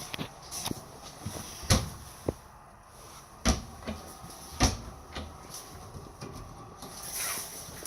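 Cabinet doors being opened and shut: a run of clicks and knocks, with three sharper bangs about two, three and a half, and four and a half seconds in.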